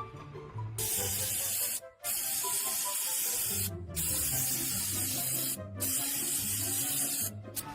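Four long bursts of pressurised spraying hiss, each about a second and a half with short breaks between, over background music with a steady beat.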